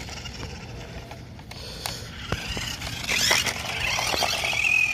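Battery-powered Adventure Force Trail Chaser RC car running fast over a concrete sidewalk: a wavering electric motor whine with tyre noise and a few sharp clicks, louder from about three seconds in as the car passes close.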